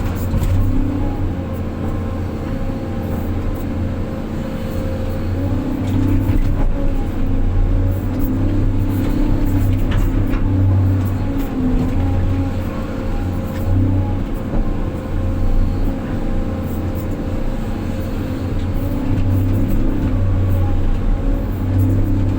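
Large diesel engine of heavy earthmoving machinery running steadily, its note wavering slightly as the load changes and getting a little louder about six seconds in.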